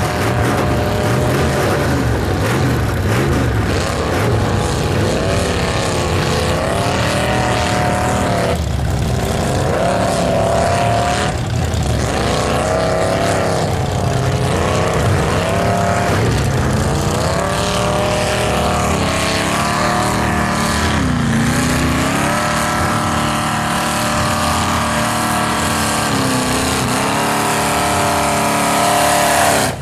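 Mega mud buggy's engine revving hard through deep mud, its pitch rising and falling again and again as the throttle is worked.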